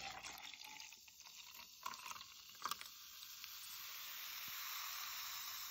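Faint hiss with two soft clicks about two and three seconds in, then a hiss that slowly swells over the last few seconds.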